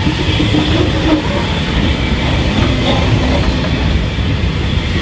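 Unrebuilt Bulleid West Country class Pacific steam locomotive 34007 Wadebridge and its train moving slowly past close by as it pulls out of the station, with a steady, loud rolling sound from locomotive, tender and coaches.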